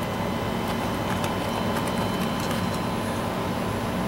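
Steady mechanical room hum, with a few faint clicks as a motherboard is handled.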